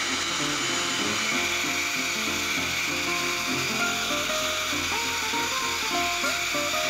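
Pet grooming blow dryer running steadily with a constant rushing hiss, over background music.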